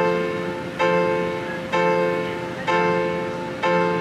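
Upright street piano played by hand: a chord struck about once a second, each one ringing and fading before the next.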